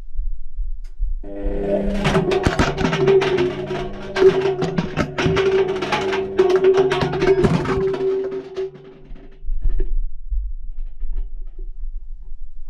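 Indesit washing machine turning its drum, heard from inside the drum: a steady motor hum with rapid clattering knocks. It starts about a second in and stops abruptly after about eight seconds, the usual on-off rhythm of a wash tumble, leaving a low rumble.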